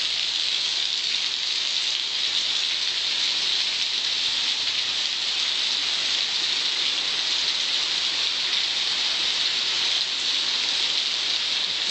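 Heavy rain pouring down onto flooded paving, a steady, dense hiss.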